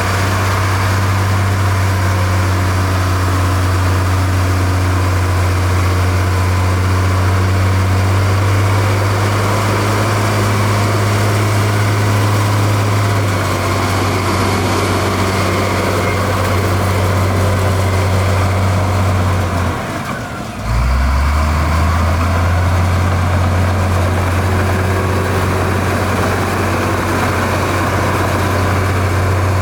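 Heavy diesel engine of construction machinery running steadily with a deep low drone. It briefly drops away about two-thirds of the way through, then comes back.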